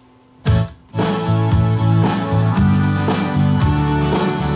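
Strummed guitar music playing back from a CD in a Pioneer PDM703 changer through an amplifier, starting suddenly about half a second in after near silence. The disc playing through is the sign that the re-glued pickup lens reads again.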